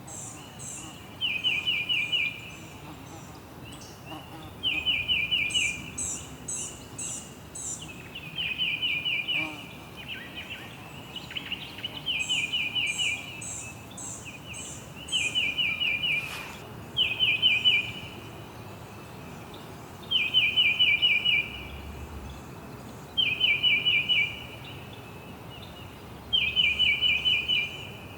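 Songbirds chirping. One bird repeats a short phrase of five or six quick notes, each phrase about a second long, every few seconds. A second, higher-pitched bird adds runs of thin notes now and then over a faint steady hiss.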